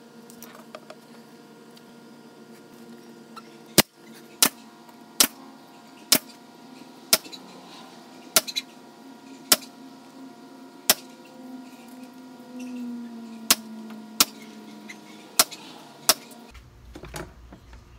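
Pneumatic finish nailer firing about a dozen times, a sharp shot roughly every second, driving nails through brickmold trim into the door frame.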